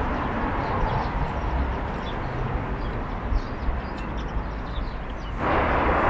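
Outdoor city ambience: a steady low rumble of traffic with faint bird chirps over it. A louder rush of noise comes in near the end.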